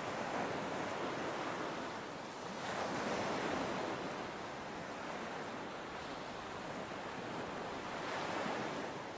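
Wind and choppy sea rushing past a sailing catamaran underway, a steady wash that swells a little about three seconds in and again near the end.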